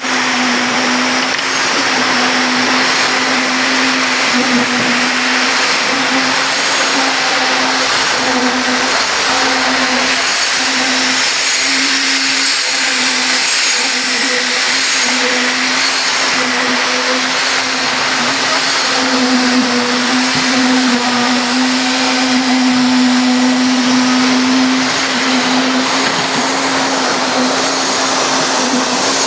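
A construction-site machine running steadily and loudly: an even whirring rush over a constant low hum, with no break.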